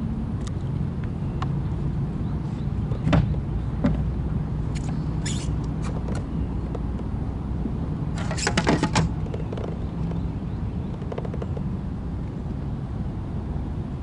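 Boat motor running steadily with a low hum, with a few clusters of sharp clicks and rattles, the loudest group about eight to nine seconds in.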